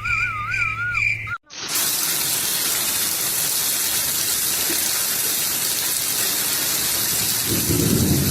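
Steady rush of running water that starts after a brief cut about a second and a half in. Before it come a rhythmic insect-like chirping and a wavering whistle-like tone.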